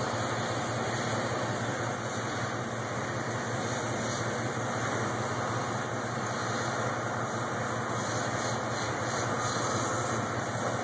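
A vehicle engine running steadily at idle under an even, steady hiss.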